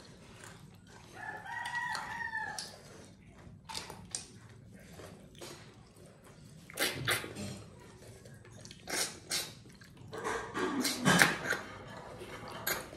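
A rooster crows once in the background, one arched call about a second in. Around it are repeated sharp slurps and smacks of people eating snail curry by hand, sucking the snails from their shells, loudest in the second half.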